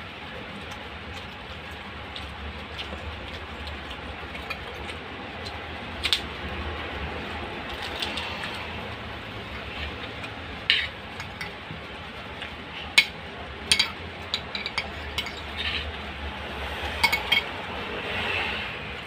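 A metal spoon clinking against a ceramic plate now and then as a person eats a coconut-milk fish stew with rice. The clinks are sharp and scattered and sit over steady background noise.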